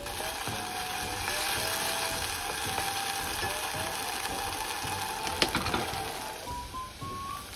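Black bean (jjajang) sauce sizzling and bubbling in a pot while it is stirred with a wooden spoon, with a sharp knock about five and a half seconds in. Light background music plays throughout.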